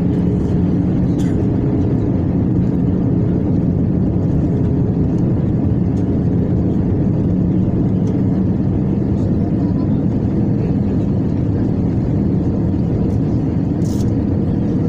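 Steady drone of a jet airliner's engines and airflow heard inside the cabin on approach, with a constant low hum under the noise. A brief click near the end.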